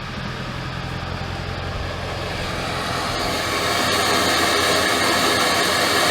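Straight-piped 7.3 Power Stroke turbo-diesel V8 running cold just after start-up. About three seconds in it grows louder and takes on a rising whistle like turbo boost. That sound comes from the exhaust back pressure valve closing the turbo outlet while the engine is cold, which is normal for a 7.3.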